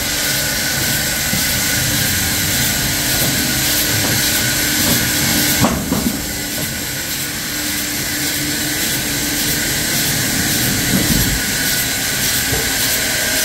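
Old sawmill machinery running steadily, with a single sharp knock about six seconds in.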